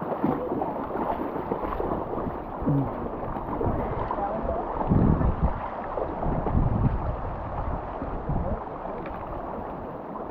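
Shallow river water rushing and gurgling around wading legs, with sloshing steps and wind on the microphone; a couple of louder low surges about halfway through.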